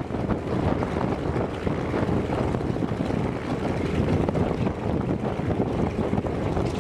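Antonov An-2's nine-cylinder radial engine (ASh-62IR) running steadily with its propeller turning, wind buffeting the microphone.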